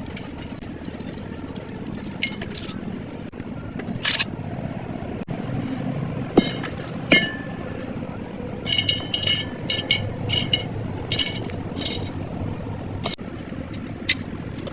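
Metal parts and tools clinking and clanking during truck clutch repair work: scattered sharp strikes, two of them ringing, then a quick run of clanks about nine to twelve seconds in, over a steady low rumble.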